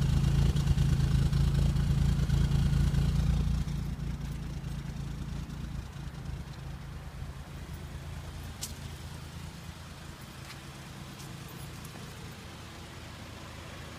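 Exhaust at the muffler of a 2000 Toyota Avalon's 3.0-litre V6 at a rough idle, from a multiple-cylinder misfire. The exhaust note is loud at first, then drops about four seconds in and again a couple of seconds later.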